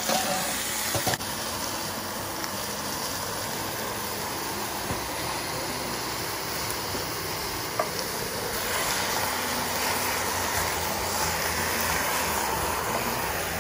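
Poultry pieces sizzling in a stainless steel pot as they are stirred with wooden spatulas: a steady hiss, with a couple of light knocks of the spatulas against the pot.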